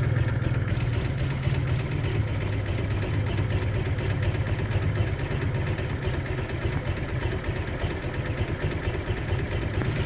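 Honda PCX scooter's single-cylinder four-stroke engine idling steadily. It is running again after a no-start, which the owner suspects comes from a faulty ECU cable connector.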